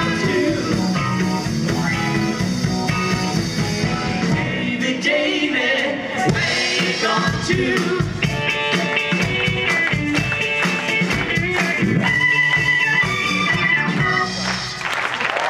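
Live rock band playing: electric guitars, keyboards and drums, with a singing voice. The song ends near the close and applause begins.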